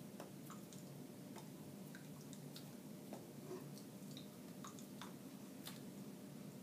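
Quiet room hum with faint, irregular soft clicks and smacks from a person signing, her hands touching and her mouth moving.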